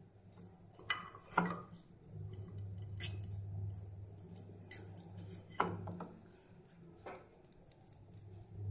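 A plastic syringe knocking and scraping against a small aluminium pan while melted lip balm is drawn up: about five sharp clinks a second or more apart, over a low steady hum.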